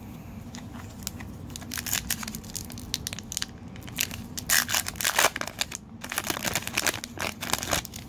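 Plastic wrapper of a 2018 Bowman baseball card pack being torn open and crinkled by hand. A run of sharp crackles starts about two seconds in and is loudest in the second half.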